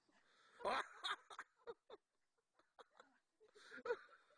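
A person chuckling softly, a run of short breathy bursts about a second in and another near the end.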